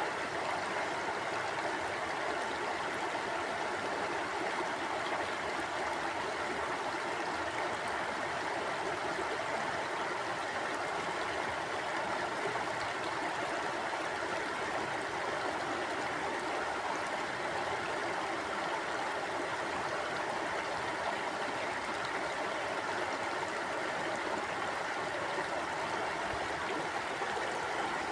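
River water flowing over rocks: a steady, unbroken rushing with no changes.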